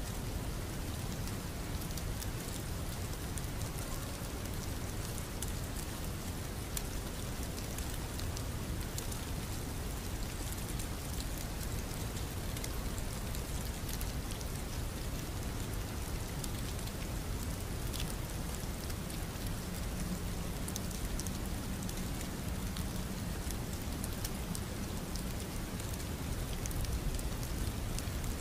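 Steady rain ambience: an unbroken hiss of rainfall with many small drop ticks scattered through it.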